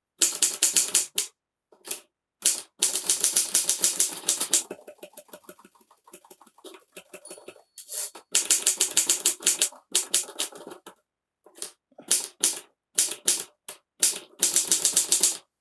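Typewriters being typed on fast: quick runs of sharp keystroke clicks, several strokes a second, in short bursts broken by sudden silent cuts. One stretch in the middle is noticeably softer and quieter than the rest.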